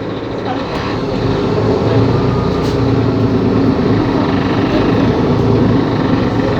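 Mercedes-Benz CapaCity L articulated city bus's diesel engine running, growing louder about a second in and then holding steady.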